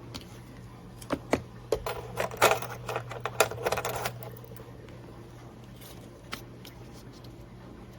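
A flurry of sharp clicks and light rattles, starting about a second in and lasting about three seconds, over a steady low hum.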